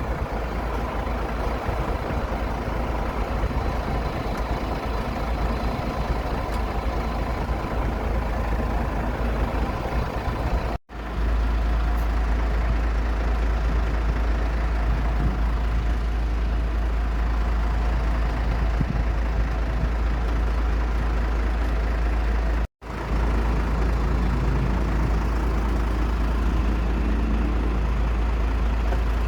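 Aircraft engines running with a steady drone over a heavy low rumble. The sound drops out briefly twice, about eleven and twenty-three seconds in.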